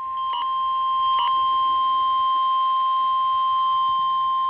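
NOAA Weather Radio's 1050 Hz warning alarm tone: one steady, loud, high beep that signals an emergency warning broadcast is about to follow. Two short clicks sound over it near the start.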